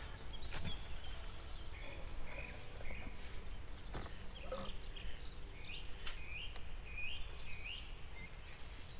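Small birds chirping and singing in short repeated notes over a steady low rumble of wind, with a few faint knocks.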